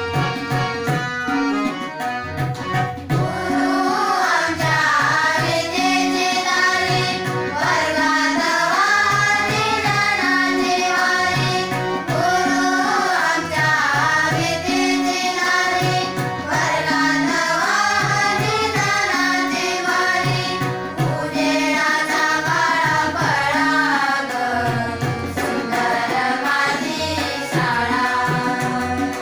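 Girls singing a song together, accompanied by a harmonium's held chords and a tabla keeping a steady rhythm. The harmonium and tabla play alone for the first few seconds before the voices come in, and the singing then goes on in phrases with short breaths between them.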